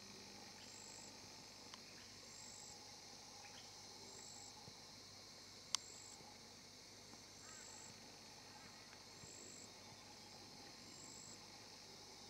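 Faint insect chorus: a steady high hiss with a short high chirp repeating about once a second. A single sharp click about six seconds in is the loudest thing.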